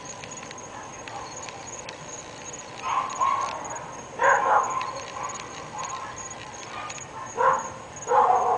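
Dogs barking in short bursts: about five barks, bunched around three and four seconds in and again near the end, with quieter stretches between.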